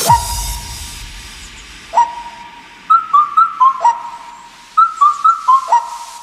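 A whistled tune in a music track: a single note at the start and another about two seconds in, then a quick phrase of about six notes that repeats. Each clear, pure note slides up into its pitch.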